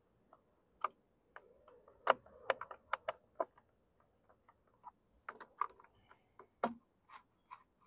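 Irregular light clicks and taps of plastic and metal engine parts being handled, as a part of a small mower engine is fitted and its screws are lined up.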